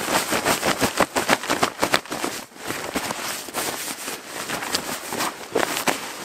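Clothes being washed by hand in water: a dense, irregular run of splashes, sloshes and crackly rubbing of wet fabric, with a short lull about two and a half seconds in.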